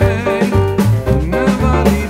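Background music: a wavering melody over bass notes and drums.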